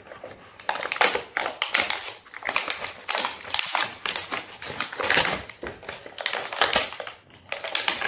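Clear plastic wrapping crinkling and rustling in quick, irregular crackles as toy binoculars are pulled out of their bag.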